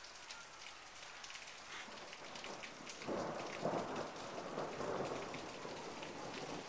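Steady rain falling, with many separate drops ticking. About halfway through, a rumble of thunder rolls in and lasts a few seconds, the loudest sound here.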